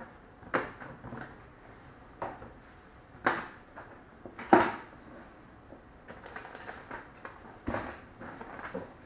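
Cardboard packaging being handled: a string of sharp knocks and scrapes as box flaps and a cardboard insert are folded back, the loudest about halfway, then softer rustling of plastic wrap and foam near the end.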